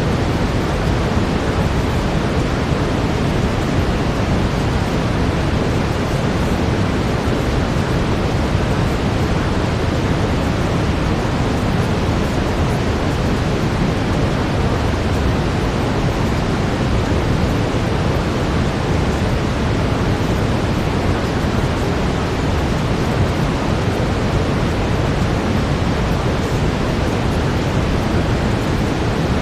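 Steady brown noise: an even, deep hiss weighted to the low end, unchanging throughout.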